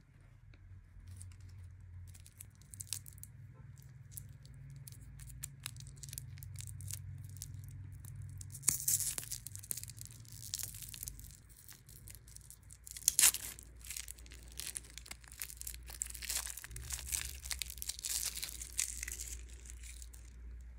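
Lollipop's plastic wrapper being crinkled and torn off by hand. It makes a run of small crackles, with denser bursts of crinkling near the middle and again toward the end, and one sharp loud crackle about two-thirds of the way in. A low steady hum lies underneath.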